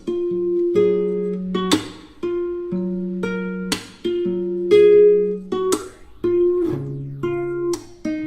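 Background music on acoustic guitar: plucked notes ringing out, with a strummed chord every second or two.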